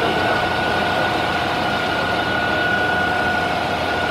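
Heavy truck engine idling steadily, with a steady high whine held over the engine noise.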